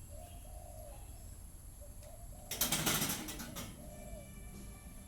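A bird cooing over and over in short, even calls, with a loud rustling flurry about two and a half seconds in that lasts about a second.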